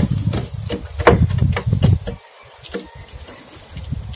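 A metal poker raking through burning charcoal in a steel mangal: a scatter of clinks and scrapes, mostly in the first two seconds, over a low rumble.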